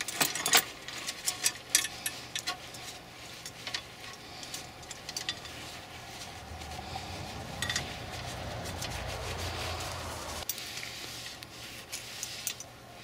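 A paper towel wetted with automatic transmission fluid rubs and wipes a rusty bicycle chain, cleaning the rust off. The chain links click and rattle against each other many times. A steadier low rumble starts in the middle and cuts off suddenly a few seconds later.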